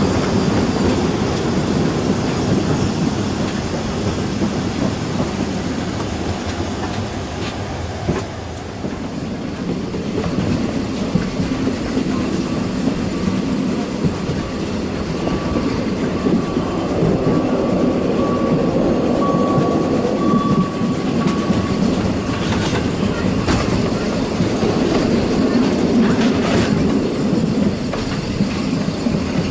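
Narrow-gauge steam train running, heard from the open window of a carriage: a steady rumble and clatter of the wheels on the rails. A thin steady wheel squeal runs for about ten seconds in the middle.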